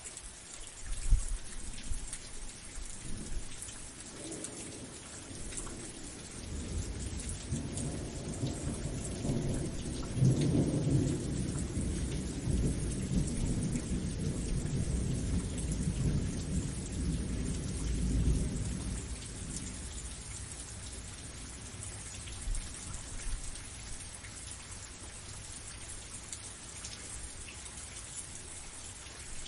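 Steady rain hissing, with a sharp thunderclap about a second in and a long low rumble of thunder that swells from about six seconds in, peaks around ten seconds and fades out by about twenty seconds.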